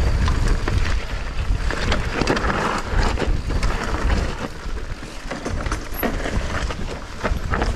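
Mountain bike riding down a rough dirt trail, heard from the bike: tyres running over loose earth and roots with many quick rattles and knocks from the bike, over a low rumble.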